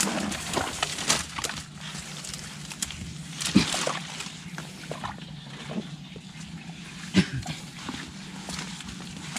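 Hands digging and groping through wet swamp mud and water for kambong-kambong snails, with irregular squelches and sloshes; the sharpest come about three and a half and seven seconds in.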